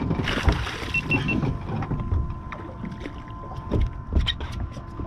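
A mahi-mahi splashing beside a boat and being swung aboard on the line: a short splash near the start, then scattered knocks and clicks of the fish, tackle and hull. Three quick electronic beeps come about a second in, over a faint steady high tone.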